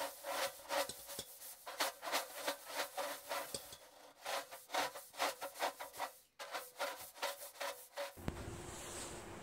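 Time-lapse sound of a lawn tractor's mower deck being taken off: a fast, sped-up run of clicks, knocks and scraping that is thin and high with no low end. It stops abruptly about eight seconds in.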